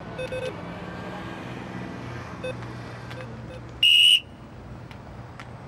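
A single short, sharp referee's whistle blast about four seconds in, lasting about a third of a second. Before it, a few short electronic beeps from an ATM keypad being pressed sound over a low street hum.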